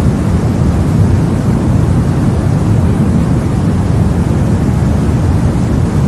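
Steady, deep white noise for sleep, with most of its weight in the low end and no change or break.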